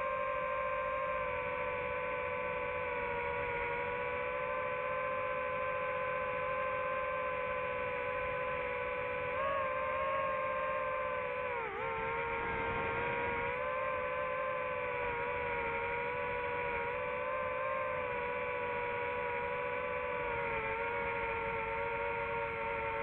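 DJI FPV drone's propellers and motors whining steadily, a stack of tones that rise briefly and then dip sharply in pitch together about halfway through as the throttle changes.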